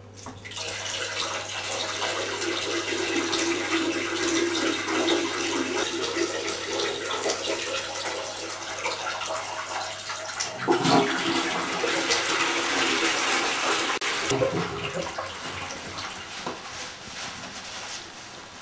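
Water running in a bathroom: a steady rush that starts abruptly, with a brief knock about ten seconds in, and eases off near the end.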